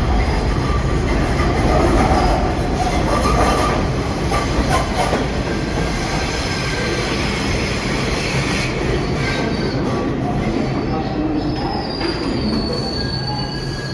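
New York City subway train on the IRT Lexington Avenue line running, with a steady low rumble and wheel clacks over the first few seconds. Near the end a high wheel squeal comes in, gliding slightly downward.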